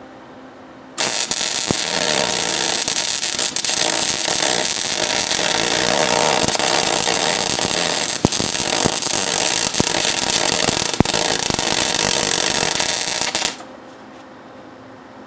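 Arc welder crackling steadily while welding a bolt onto a broken exhaust manifold stud, to get a grip for pulling it out of the cylinder head. The arc strikes about a second in and runs continuously for roughly twelve seconds, with scattered sharp pops, then cuts off abruptly.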